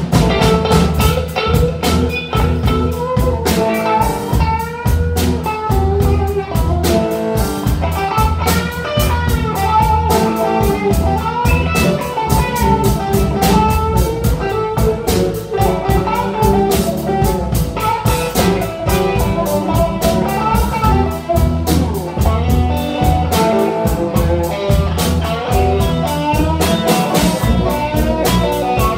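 Live blues band playing an instrumental break: an electric guitar takes a solo with bent, sliding notes over bass and drums.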